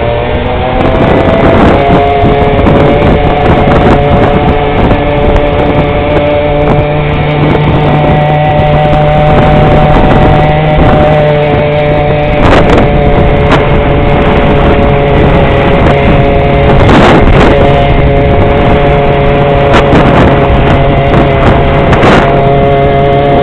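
Small motor scooter engine running steadily at cruising speed, its pitch rising slightly about a second in and then holding level, with wind on the microphone and a few brief knocks.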